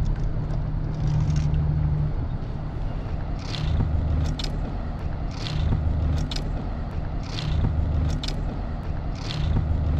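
Sea water lapping against a concrete pier, a soft splashing swell about every two seconds, over a steady low rumble of wind on the microphone.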